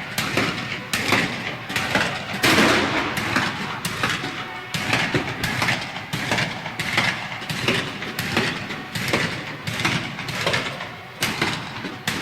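Battle ambience of 19th-century musket and rifle fire: a dense, irregular run of shots, several a second, over a continuous noisy din.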